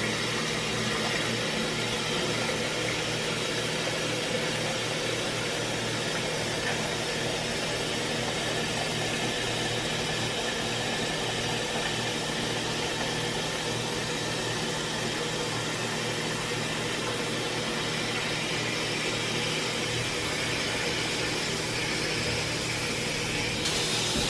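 Hot water running steadily from a kitchen faucet into a plastic pitcher as it fills.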